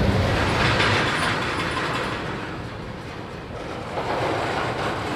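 Freight tank cars rolling past on the rails, with wheels clicking and rumbling over the track. A heavy low rumble fades out within the first second.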